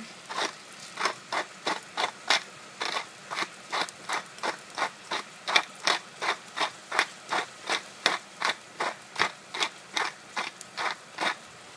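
Pepper mill twisted by hand to grind black pepper: an even run of short crunching rasps, about three a second, stopping near the end.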